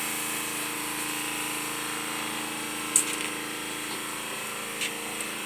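Air compressor running with a steady hum, with one sharp click about three seconds in.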